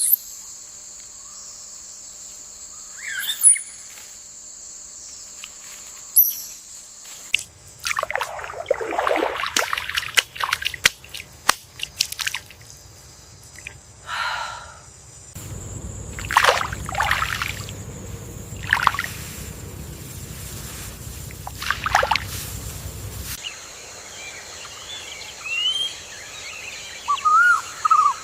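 Paddy-field nature soundscape: water splashing and sloshing in short bursts, over a steady high insect drone. Short bird chirps come in near the end, and the backdrop changes abruptly every several seconds.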